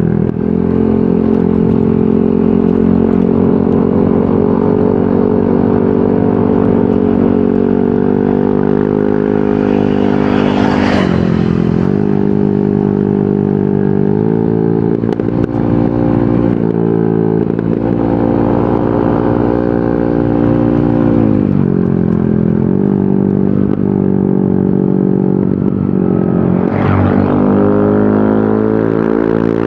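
Yamaha NMAX 155 scooter's single-cylinder engine running through an aftermarket VMAX Onyx muffler, holding a steady pitch that dips and climbs back several times as the throttle eases off and opens again. A short rushing noise comes about 11 seconds in and again near the end.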